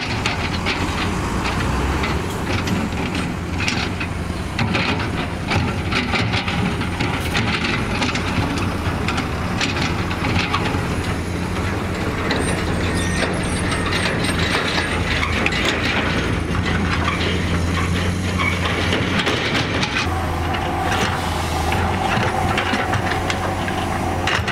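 Heavy diesel construction machinery running, a steady low engine note under continuous metallic clanking and rattling; a higher steady tone joins near the end.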